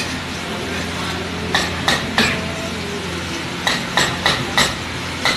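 Metal ladle clinking and scraping against a large flat griddle as pav bhaji gravy is stirred, sharp clinks coming in two quick clusters with one more near the end, over a steady low hum.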